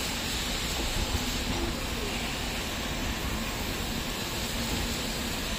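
Steady hiss of high-pressure water jets spraying onto the side of a slowly moving passenger coach in an automatic train washing plant, with a faint steady hum underneath.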